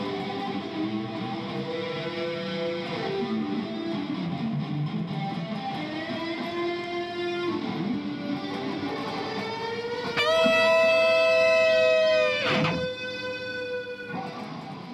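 Guitar music playing a melody. About ten seconds in, a loud note rings out and is held for about two seconds, then drops in a fast downward slide, and the playing grows quieter.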